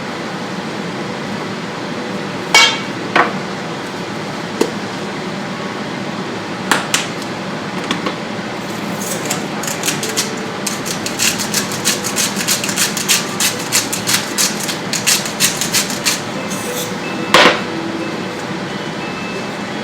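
A steady hiss with scattered sharp clicks and knocks, thickening into a rapid run of clicks in the middle.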